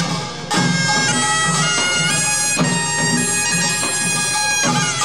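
Pungmul band playing: a piercing taepyeongso (Korean double-reed shawm) carries a stepping melody over drums beating a steady rhythm about twice a second.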